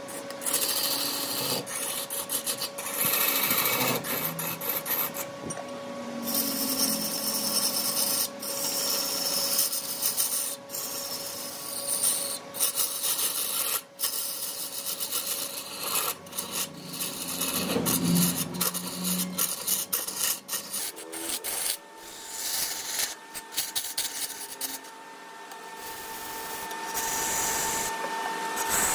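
Wood lathe running with a steady motor hum while a hand-held turning tool scrapes against the spinning wood, giving a rasping noise broken by frequent short gaps. The hum moves to a higher pitch about two-thirds of the way through.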